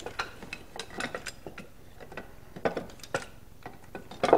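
Steel jump traps and their chains clinking and rattling as they are handled, with scattered light metal clicks and one sharper clank about four seconds in.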